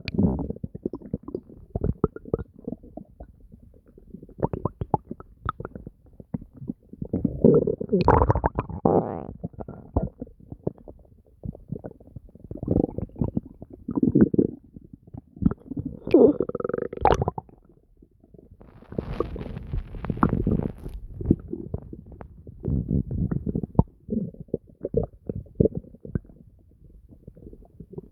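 A person's stomach gurgling and rumbling: irregular runs of short gurgles, with louder bouts of deep growling every few seconds.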